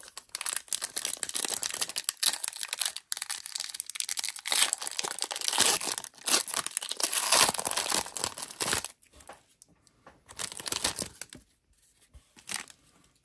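Foil wrapper of an Upper Deck AEW trading card pack being torn open and crinkled for about nine seconds. A shorter burst of crinkling follows, then a few faint rustles as the cards are handled.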